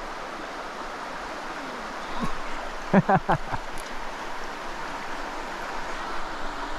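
Small creek running steadily, an even rushing of flowing water. A short vocal sound about three seconds in.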